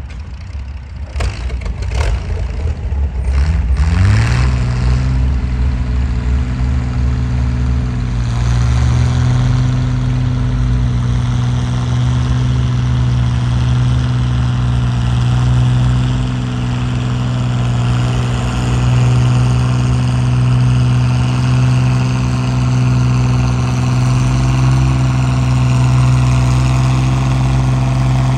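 Antique tractor engine revving up about four seconds in, after a few knocks, then running steadily at high revs under load as it drags a weight-transfer pulling sled.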